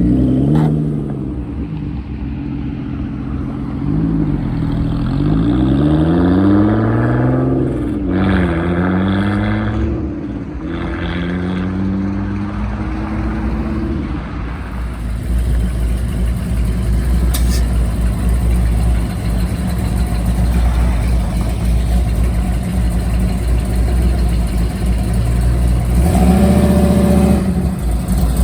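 Car engine revving and pulling away, its pitch rising and falling several times. About halfway through it gives way to a steady low engine rumble, with a brief louder burst of engine sound near the end.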